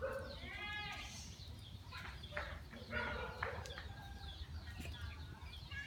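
Chickens clucking and calling in short bursts, with scattered high chirps.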